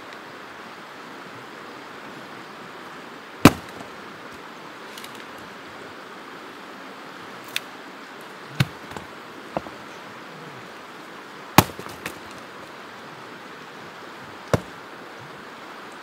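Axe splitting firewood: several sharp, separate chops at irregular intervals a few seconds apart, over a steady rushing background.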